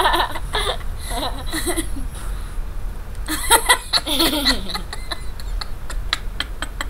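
Girls laughing and giggling in short bursts, followed near the end by a run of light clicks.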